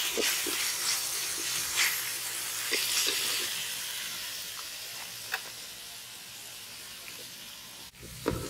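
Chopped onions, green chillies and curry leaves sizzling in hot oil in a metal pot, softening gradually, with a metal ladle scraping and clinking against the pot as they are stirred. The onions and chillies are being sautéed before the meat goes in.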